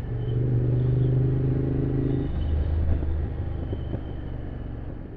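Motorcycle engine running on the road with wind rush; its note holds steady, then drops to a lower pitch a little over two seconds in.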